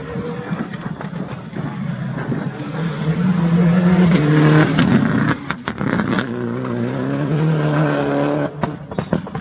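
Citroën DS3 rally car's engine accelerating hard past at high revs, loudest about four to five seconds in. The throttle lifts twice, about five and a half seconds in and near the end, each time with a few sharp cracks, between which the engine pulls hard again.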